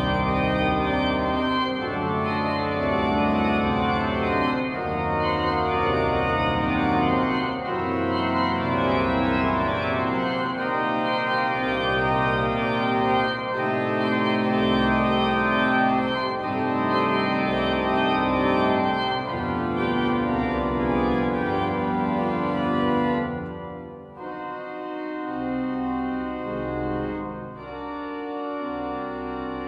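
Ladegast-Sauer pipe organ playing sustained, many-voiced chords at full volume, then shifting to a quieter, thinner registration about three-quarters of the way through.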